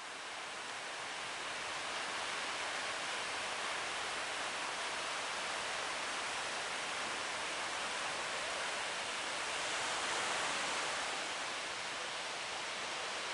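Steady rushing noise of wind and breaking sea around a boat running in big waves, swelling briefly about ten seconds in; no engine note stands out.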